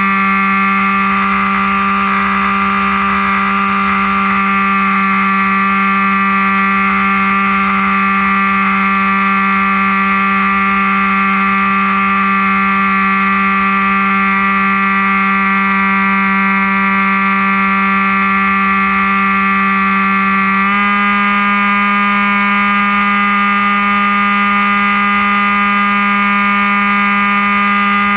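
Electric brushless outrunner motor and 7x5 propeller of an RC plane running at steady throttle, a steady whine heard from a camera on board. The pitch steps up slightly about two-thirds of the way through, as the throttle is raised.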